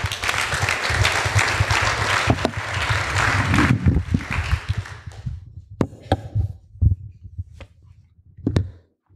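Audience applause for about five seconds, fading out, then scattered knocks and clicks with low thumps.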